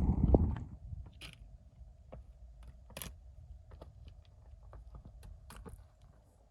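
Wind buffeting the microphone, dropping away about half a second in, leaving faint, irregular clicks and taps of footsteps on a stony mountain path.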